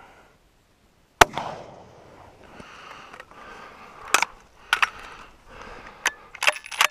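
A single hunting rifle shot about a second in, loud and echoing off briefly, followed by clothing rustle and several sharp clicks and knocks as the rifle is handled and moved.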